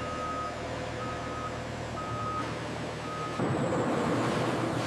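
A truck's reversing alarm beeping four times, about once a second, over a steady engine hum. About three and a half seconds in, the sound changes to a louder, steady rumble.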